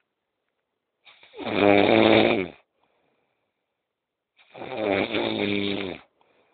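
A sleeping person snoring loudly: two long, rough snores about three seconds apart, each lasting about a second and a half.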